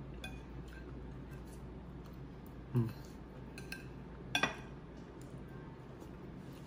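Knife and fork clinking and scraping against a plate while cutting and eating pasta: a few light clicks, then a sharper double clink about four and a half seconds in.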